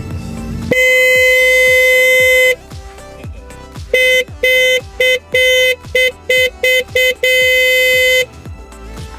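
Electric car horn on a homemade ride-on car, switched from its battery: one long extra-loud blast, then a quick run of about eight short toots, then another long blast.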